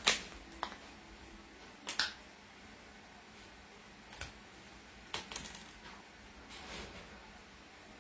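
Plastic cookie icing pouches being handled and set down on a wooden table: a few short crinkles and taps spread out, the loudest right at the start.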